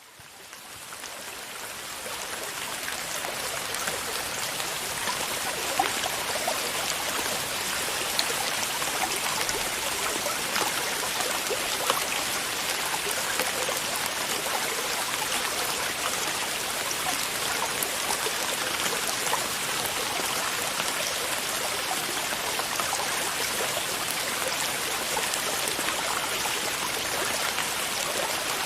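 Steady rushing water with small scattered drip-like ticks, fading in over the first couple of seconds.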